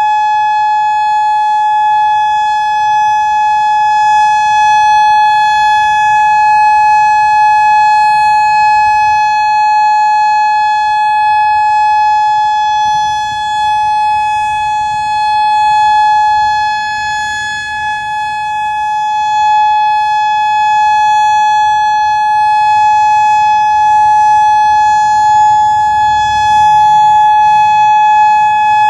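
Federal Signal Modulator electronic outdoor warning siren sounding one steady tone of unchanging pitch, with small swells in loudness: a test of the storm warning system.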